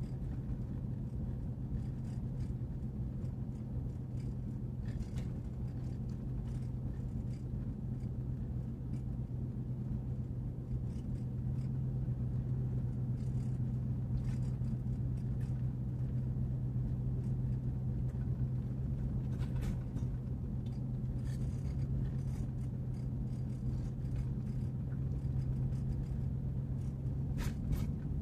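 Steady low drone of a Chevy Avalanche's V8 engine and road noise heard inside the cab while cruising at an even speed, with a couple of brief clicks or rattles near the end.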